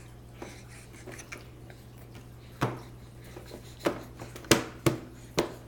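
Young child making sharp smacking sounds with her arm: a few faint ones at first, then about five loud, irregular smacks in the second half.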